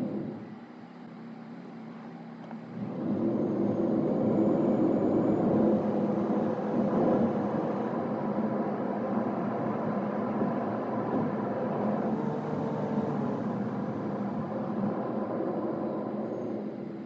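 Car on the move: steady engine and road noise. It is quieter for the first couple of seconds, as when slowing or idling, then rises about three seconds in and holds steady.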